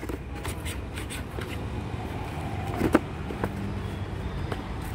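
Steady low noise of road traffic, with cardboard and molded-pulp packaging being handled: light scrapes and taps, and one sharper knock just before three seconds in.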